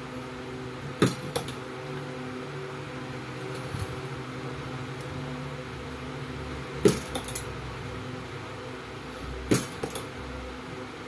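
Battery cell spot welder firing: sharp snaps in quick pairs and threes, a few seconds apart, over a steady electrical hum.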